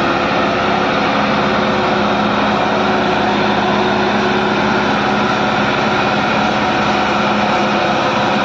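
Diesel engine of an ACE pick-and-carry crane running loud and steady.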